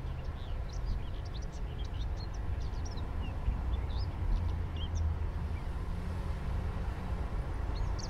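Small birds chirping in quick, scattered calls over a steady low rumble.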